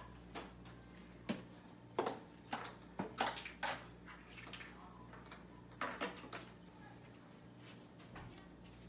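Crinkly plastic packaging rustling and crackling in short, sharp bursts: a cluster in the first four seconds and another around six seconds in, the 'sasha-sha-shak' sound of cats pawing at a plastic bag.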